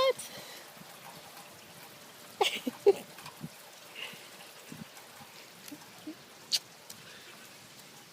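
Rain falling steadily, with a baby's few short vocal sounds, a squeak and a grunt, about two and a half to three seconds in, and a faint click later on.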